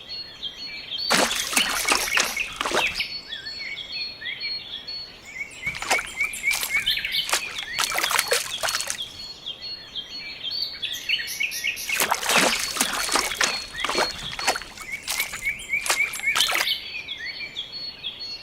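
Small birds chirping steadily, with three louder noisy bursts of a second or more each: one near the start, one in the middle and one in the later part.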